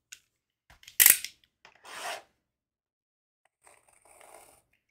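Trading cards handled on a tabletop: a sharp tap about a second in, then rustling and sliding of cards.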